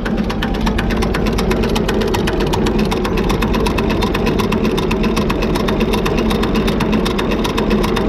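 IMT tractor's three-cylinder diesel engine running steadily with a fast, even clatter of firing strokes. It is running well again after a stuck injector nozzle was dealt with.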